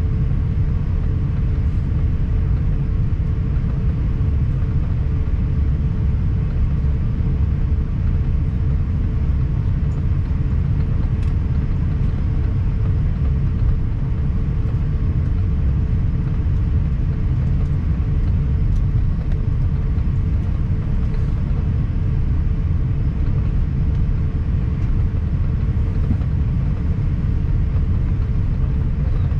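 Steady low rumble in the cabin of a British Airways Airbus A350-1000 taxiing, its Rolls-Royce Trent XWB-97 engines at idle, with a faint steady hum running through it.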